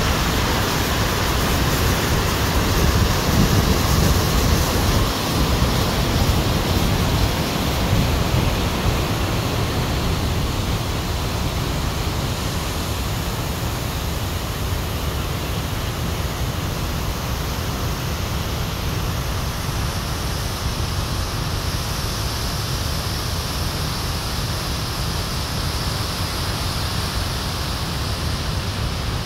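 Rushing mountain torrent: a steady noise of white water tumbling over rocks, a little louder for the first several seconds.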